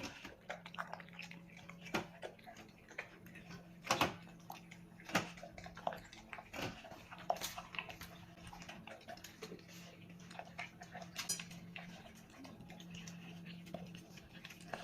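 A dog eating its food: scattered small clicks, smacks and clinks of chewing and of the dish, a few a little louder than the rest.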